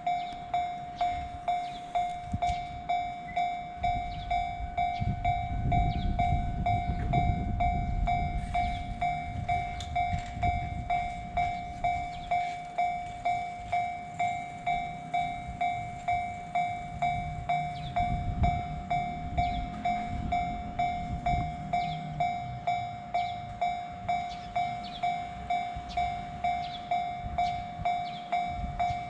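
Japanese railroad crossing alarm ringing steadily, an even ding repeating about one and a half times a second. Trains rumble through the crossing twice, around 5 seconds in and again around 18 seconds in.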